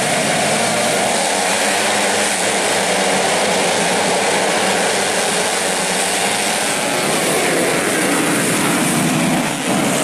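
A full grid of small-displacement dirt bikes revving together as a dense engine din, the pack then accelerating away off the start line.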